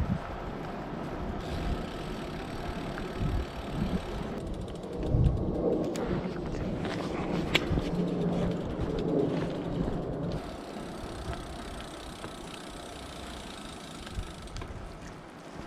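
Outdoor road noise with a motor vehicle passing, loudest from about five to ten seconds in, with a single sharp click near the middle.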